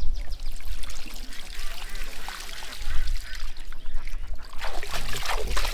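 Water splashing and trickling in quick, irregular spatters.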